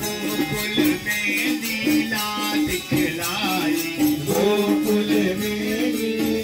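Men singing a Hindu devotional song into microphones, to a dholak drum and a steady held note underneath, with a shaken percussion keeping a quick even beat.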